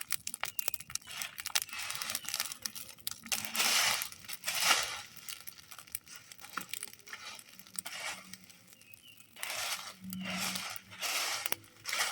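Cooking fire crackling, with many sharp snaps and pops, and several louder hissing surges of about a second each.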